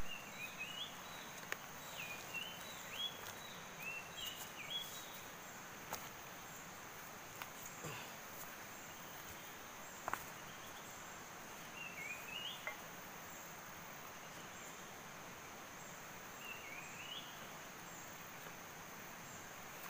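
Tropical forest ambience: a steady high insect drone, with short rising bird calls in quick runs near the start, again about twelve seconds in and around seventeen seconds in, and a few faint clicks.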